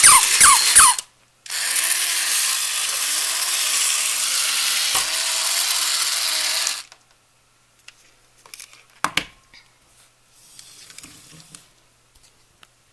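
Mid-century battery-operated toy poodle giving a few quick, high yapping barks that each drop in pitch. After a short pause, its small electric motor and gears whir steadily for about five seconds as it walks, then stop abruptly. A few faint clicks follow, one of them sharp.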